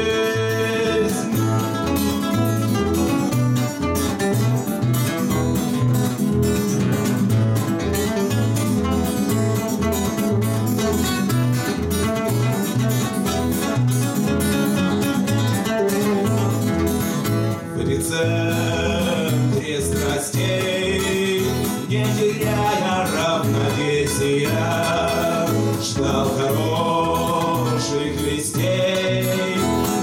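Two acoustic guitars strummed in a steady rhythm with men singing a Russian bard-style pop song; the voices come to the fore about two-thirds of the way through.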